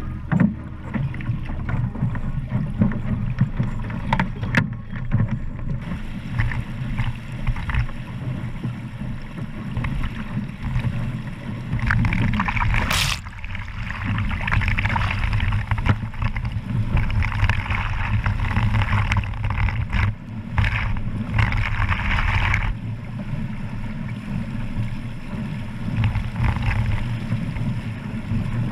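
Wind buffeting the microphone and water rushing and splashing along the hull of a Sunfish sailboat moving fast through chop in strong wind. The splashing hiss grows louder through the middle stretch, then eases.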